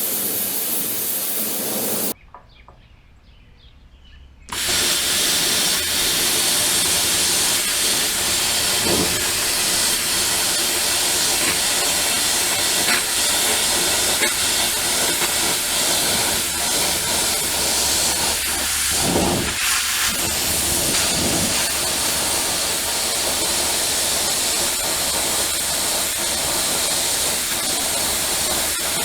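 Cutting torch hissing steadily as it cuts through thick steel plate. It drops out about two seconds in and starts again a couple of seconds later.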